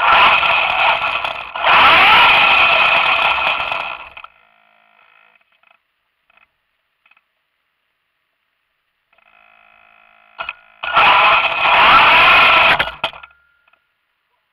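Radio-controlled car's motor and drivetrain whining with tyre noise on asphalt, picked up by a camera riding on the car. There are three bursts of driving, two in the first four seconds and one about eleven seconds in, with the pitch sliding up and down as the car speeds up and slows. The stretches between the bursts are almost silent while the car stands still.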